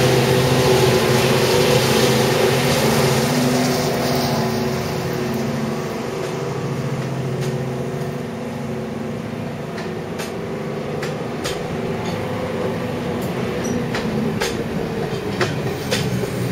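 Class 55 Deltic diesel locomotive running slowly at close range, its Napier Deltic two-stroke engines giving a steady, many-toned drone that eases a little midway. A few sharp clicks sound in the latter half.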